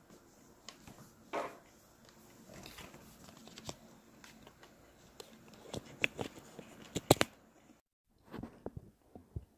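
Close-up chewing and mouth noises, then a run of clicks, taps and rubbing as the recording phone is handled and moved. The loudest taps come about seven seconds in. The sound cuts out completely for a moment just after them.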